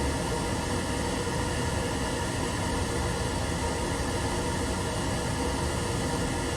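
Sewage pump motor running steadily with a constant hum and rush, wired with the float switch's leads joined so it runs straight on power: it works, showing the fault lies in the float switch.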